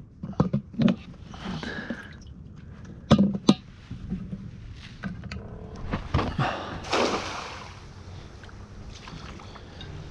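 Hard plastic knocks and clicks from a bait bucket lid and the kayak hull, two loud ones about three seconds in. Then a cast net is thrown and lands on the water with a brief splash.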